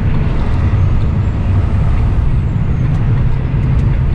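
Steady low rumble of a semi-truck's engine and road noise inside the cab while driving down the highway.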